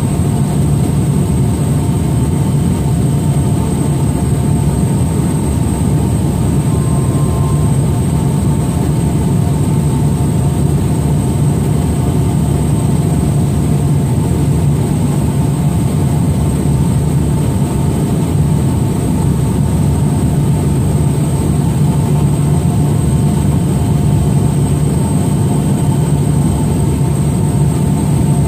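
Steady engine and propeller drone of a light MAF mission plane, heard from inside the cabin in flight. It is loud and unchanging, low and heavy, with a few faint steady higher tones over it.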